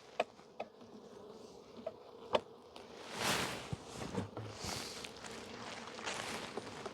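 Honey bees buzzing in a steady hum around an open, heavily populated hive. A few sharp clicks come in the first seconds, with hissing swells later, as hive frames are handled.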